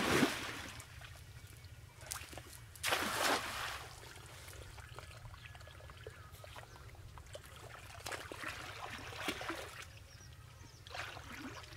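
Water splashing as a cast net is thrown into a pond: a splash right at the start, a louder rush of water about three seconds in as the net lands, then softer trickling splashes while the net line is drawn in.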